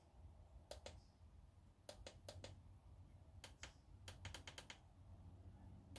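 Faint clicks of buttons being pressed on a Tactacam Reveal X Pro trail camera, about a dozen short presses in irregular runs, as its settings menu is stepped through.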